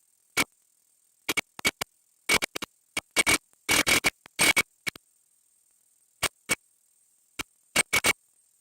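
Milwaukee 1-inch cordless impact wrench hammering on a rusted nut in short, irregular bursts with silence between them.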